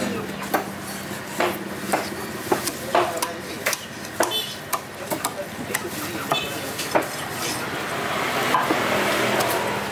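A large knife filleting a snapper on a wooden chopping block: irregular sharp taps and knocks of the blade against the board, then a longer rasping scrape about eight seconds in as the blade works along the fish.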